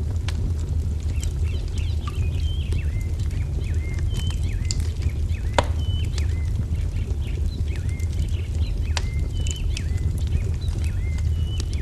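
Wood fire crackling with sharp pops over a steady low rumble. Small birds chirp over it in short, repeated notes.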